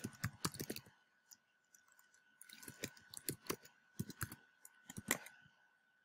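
Typing on a computer keyboard in two runs of keystrokes: a short run at the start, then a longer one from about two and a half to five and a half seconds in.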